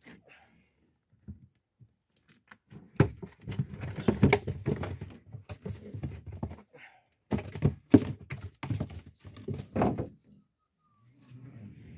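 A dense run of hard knocks and thuds against a boat, in two clusters of a few seconds each with a short pause between, as gear and the camera are handled aboard.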